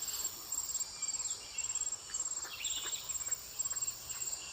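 Insects chirping in fast pulsed bursts about twice a second over a steady high insect drone, with scattered short bird chirps.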